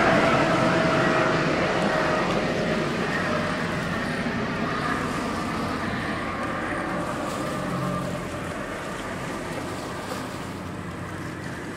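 Engine of a runaway speedboat running at speed with nobody aboard. Its whine drops slightly in pitch and grows steadily fainter as the boat moves away, over the wash of its hull on the water.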